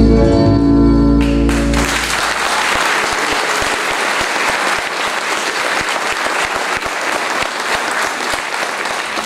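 The dance music ends on a held chord about two seconds in, and an audience breaks into steady applause.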